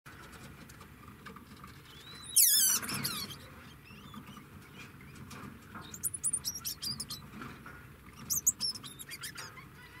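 Degus calling: a loud high squeal that falls steeply in pitch about two seconds in, then two runs of short, high-pitched chirps, the first around six seconds in and the second, briefer one near eight and a half seconds.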